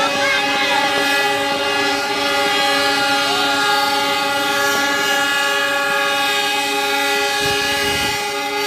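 Diesel locomotive air horns held in one long continuous blast, several tones sounding together as a steady chord.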